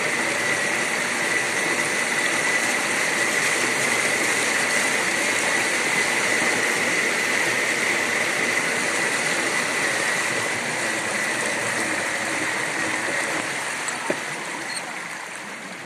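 Floodwater rushing and splashing steadily as a van drives through it, with a steady high whine running over the water noise. The noise eases off over the last few seconds.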